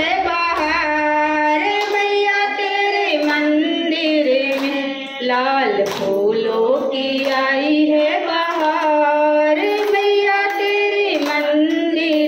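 A woman sings a Hindi devotional bhajan to the goddess into a handheld microphone. Her voice holds and slides between long notes, with steady hand claps keeping time.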